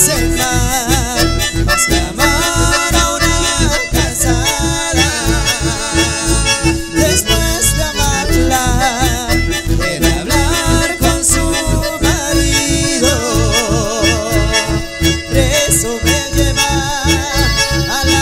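Live band playing an instrumental passage, with an accordion and a bandoneon carrying a wavering melody over guitars and a steady, even bass beat.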